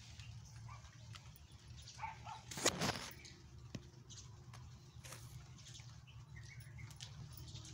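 Leaves rustling as the phone brushes through garden plants, loudest in one brief burst about two and a half seconds in, over a low steady rumble, with a few faint bird chirps.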